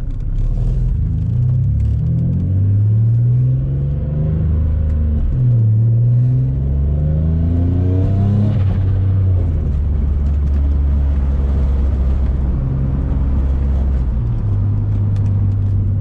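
Single-turbo Infiniti G35's VQ35 V6 pulling under acceleration: the revs climb, drop at an upshift about five seconds in, climb again, then settle into a steady cruise from about nine seconds in.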